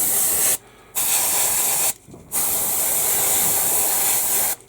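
Airbrush spraying paint with a steady hiss in three bursts, broken by short pauses about half a second in and about two seconds in, and stopping shortly before the end.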